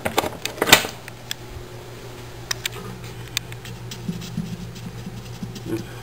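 A steady low hum, with a cluster of sharp clicks and knocks in the first second as things are handled, then a few scattered light ticks.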